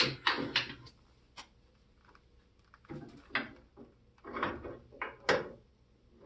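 Intermittent knocks and short sliding scrapes of parts being handled at a wood lathe. The lathe is not running.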